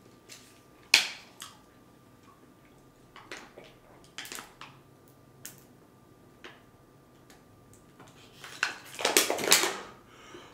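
A small plastic water bottle is opened and drunk from. The cap's seal cracks with one sharp click about a second in, followed by scattered small clicks and swallows. Near the end comes a louder stretch of crackling, crinkling noise.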